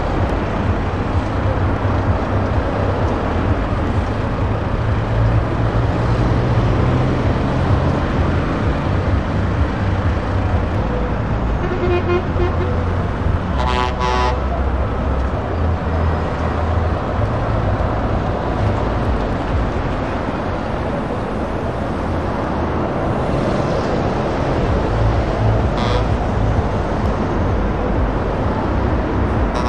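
Heavy lorries' diesel engines running as they pull slowly past in a queue, a steady deep rumble. A horn sounds twice in quick succession about halfway through, for roughly two seconds in all.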